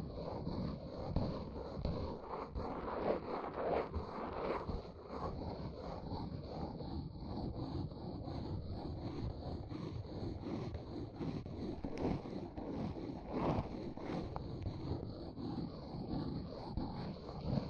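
Dense, continuous scratching and rustling close to the microphone, with an occasional sharper tick.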